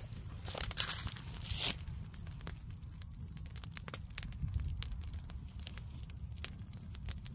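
Log campfire crackling, with irregular sharp pops and snaps over a steady low rumble. In the first two seconds a few louder rustles, like steps in dry leaves.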